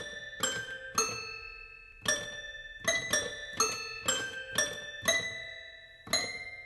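Slow melody of single high notes on a piano, each struck and left to ring out, in short phrases with brief pauses between them.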